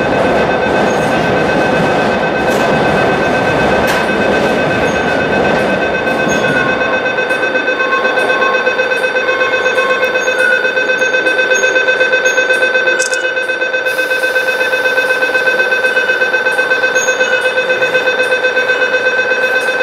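A steady high-pitched electronic alarm tone with a fast, even pulse. Under it, the low rumble of a departing train dies away about six and a half seconds in.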